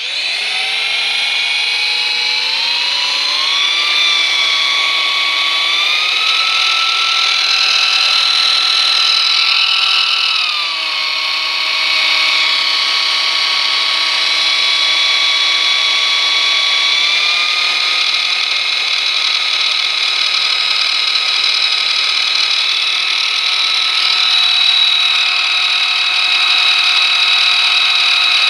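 Electric drill running in drilling mode at medium speed, its motor pitch stepping up and down several times as the speed changes, with a high whistle or grinding noise over the motor. The owner is unsure whether this is a fault or normal running.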